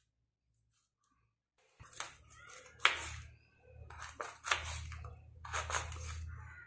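Kitchen knife slicing through a cooked beetroot and striking a wooden chopping board: about five short, sharp cuts, starting about two seconds in, over a low steady hum.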